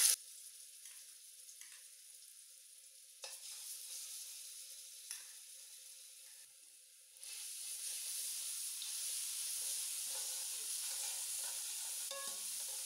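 Garlic paste sizzling in hot cooking oil in a karahi. The hiss is quiet at first, with a couple of light clicks, then grows louder from about seven seconds in as the paste is spread through the oil.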